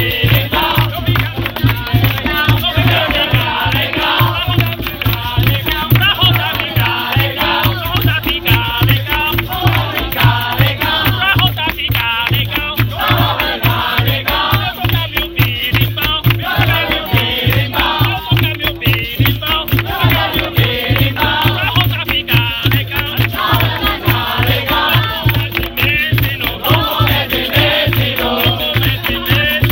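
Capoeira roda music: the bateria of berimbaus, hand drum and pandeiro playing a steady, even rhythm, with voices singing over it.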